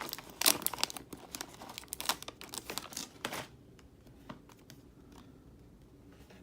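Crinkling and tearing of plastic snack-bag and card-pack wrappers being handled and pulled open, dense crackling for about three and a half seconds, then a few scattered crinkles.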